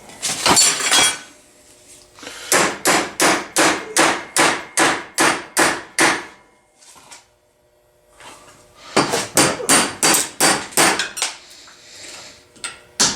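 Hammer striking rusted vise-grip pliers clamped in a vise, metal on metal, in two quick runs of about three blows a second with a short pause between, to free a rust-frozen jaw.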